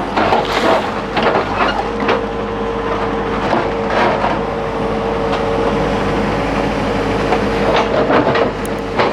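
Hidromek backhoe loader working: its diesel engine runs steadily under a constant tone, with repeated metallic clanks and knocks throughout.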